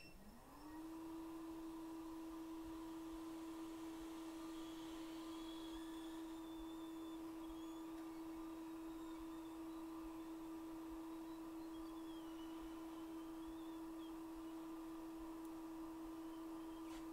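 A small blower motor, likely a hot-air rework station's fan, spins up with a short rising whine in the first second, then runs as a faint, steady tone.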